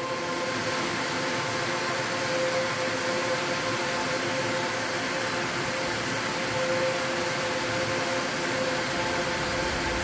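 Shallow river rushing over rocks in a small cascade: a steady, even hiss of running water that comes in suddenly. Background music with held tones plays underneath.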